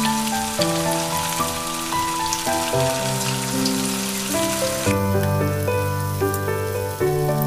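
Battered chicken pieces crackling and sizzling in hot oil in a frying pan, with background music. The crackle drops away sharply about five seconds in while the music continues.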